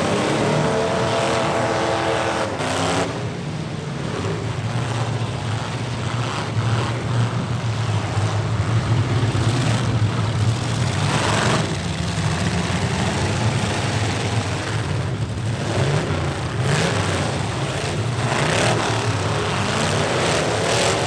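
Engines of several demolition-derby stock trucks running loud and revving up and down, with a few sharp hits of trucks ramming each other.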